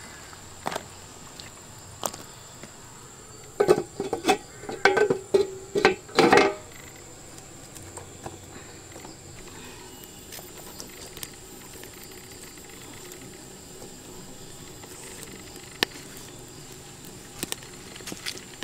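Insects droning steadily at a high pitch. A run of short, louder sounds comes about four to six seconds in.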